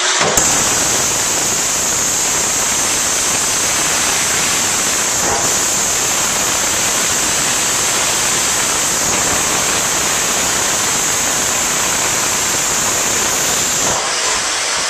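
Small Harbor Freight corded electric breaker hammer (jackhammer) running flat out, its chisel hammering and chipping into a cast iron bathtub. It is very loud and steady, easing off briefly near the end.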